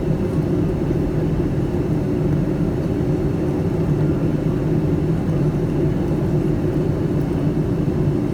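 Steady low rumble of a Boeing 757-200 airliner cabin: engine and airflow noise, even throughout with no sudden events.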